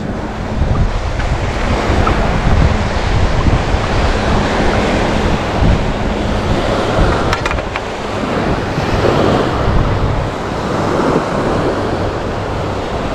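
Small surf waves washing onto a sandy beach, with wind buffeting the microphone.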